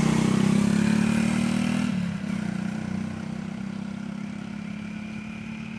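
A motor engine running steadily, loudest for the first couple of seconds, then dropping and fading away.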